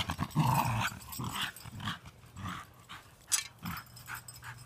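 Wire fox terrier growling in short repeated bursts as it bites and tugs at a shovel, with one sharp click a little over three seconds in.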